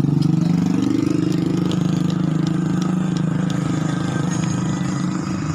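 Heavy vehicle engine idling steadily, its pitch rising slightly about a second in.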